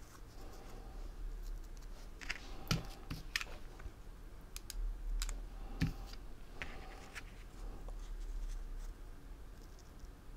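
Quiet hand-handling noises of folded satin-ribbon leaves being picked up and arranged between the fingers: scattered light clicks and rustles, with two soft knocks, about three and six seconds in.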